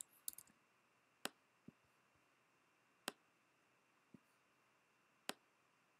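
Near silence broken by a few short, sharp computer mouse clicks: a quick cluster just after the start, then single clicks about a second to two seconds apart.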